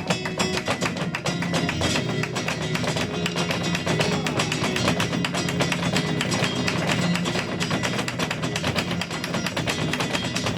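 Flamenco guitar playing a tangos, strummed and plucked, with a dense run of sharp percussive taps over it throughout.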